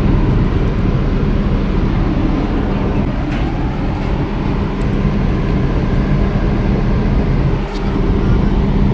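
A motor running steadily at a constant speed, with an even low hum.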